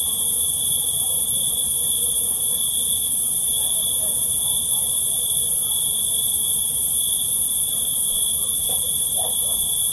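A chorus of crickets chirping in an unbroken, steady high trill, with a high hiss above it.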